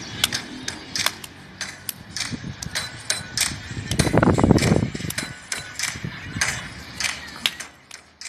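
Irregular sharp claps and taps from small children clapping, with a muffled low rumble about four seconds in.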